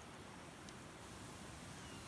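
Small wood fire burning quietly, a steady low rush with a single faint crackle under a second in.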